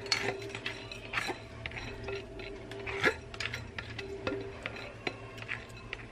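A plastic rice paddle scraping and tapping soaked rice out of a glass bowl into a rice cooker's metal inner pot: a string of light clicks and clinks, with one sharper knock about three seconds in.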